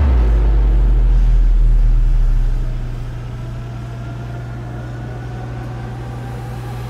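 Cinematic sound-design boom: a deep sub-bass hit that rings for about two and a half seconds and fades, over a steady low hum. Faint tones slowly rise through the rest.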